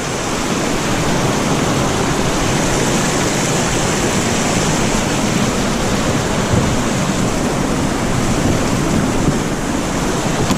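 River rapids rushing in a steady, loud wash of water noise.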